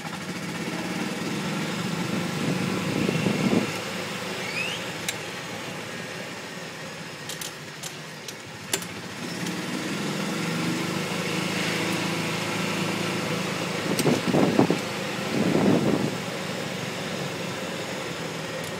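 Golf cart driving along a street: a steady low motor hum with road noise, swelling briefly about three seconds in and twice near the end.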